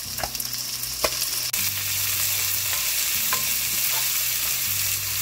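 Chopped red onions sizzling in hot mustard oil in a non-stick pot as a spatula stirs them, with a few light clicks of the spatula against the pan. The sizzle grows louder about one and a half seconds in.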